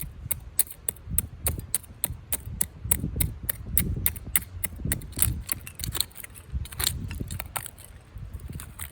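Dry wood snapping and crackling in quick, irregular clicks, several a second, over a low rumble.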